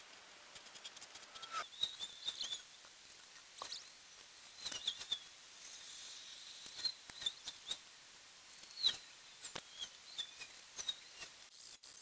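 Light clicks, scratches and small squeaks of a pencil marking lines on soft insulating fire bricks along a metal ruler. Near the end a hand file starts rasping.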